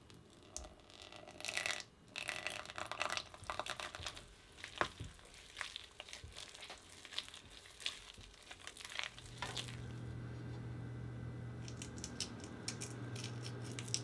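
Hands mixing and kneading a crumbly peanut butter dough in a ceramic bowl: irregular crunching, crinkling rustles and small clicks. After about nine seconds this gives way to a steady low hum, with a few light clicks near the end.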